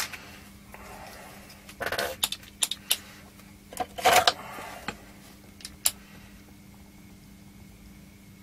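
Clicks and clattering knocks of tools being handled on an electronics workbench, loudest about two and four seconds in, as a spring-loaded desoldering pump is picked up for desoldering capacitors; it goes quieter after about six seconds, with a faint steady hum underneath.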